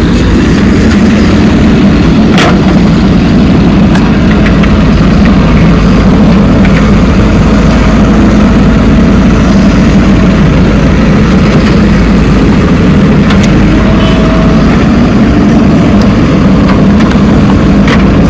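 Diesel engines of earthmoving machinery, a backhoe loader and tractor, running steadily under work, with a few short knocks.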